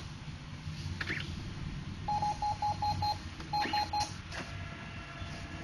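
Brother MFC-J615W inkjet printer's built-in beeper sounding a run of five quick electronic beeps and then three more, over a steady low hum, with a click about a second in.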